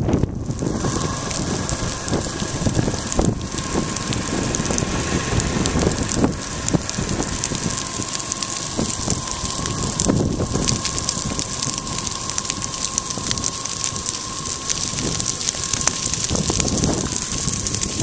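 Dry prairie grass burning in a prescribed fire: a dense, steady crackling of the flame front, with wind on the microphone.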